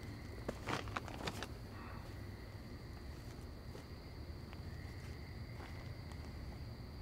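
Night insects trilling steadily at two high pitches, with a few rustling footsteps in the first second and a half.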